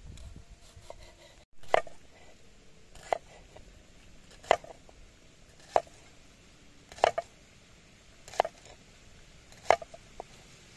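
Kitchen knife slicing a bitter gourd on a wooden chopping block: about seven crisp cuts at an even pace, roughly one every second and a third, each a short sharp tap.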